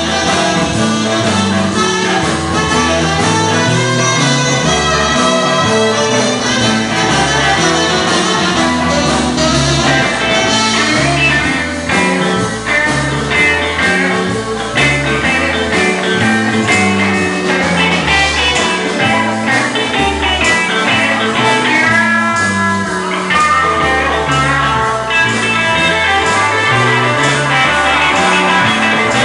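Live band playing a blues number, with guitar to the fore over a bass line.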